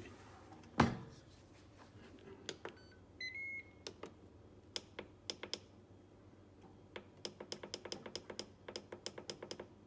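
A single knock, then a short beep from the Ninja Foodi's control panel, then a quick run of clicks, about five a second, as the cooking time is set.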